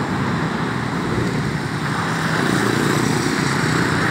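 Steady road traffic noise from cars and motorcycles passing on the street, getting a little louder about halfway through.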